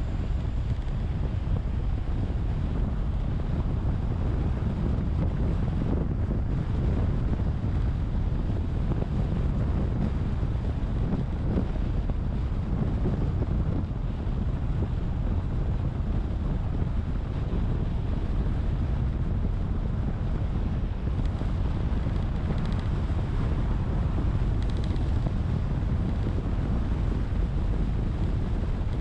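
Steady low rumble of wind buffeting the microphone, mixed with the road noise of a car driving along.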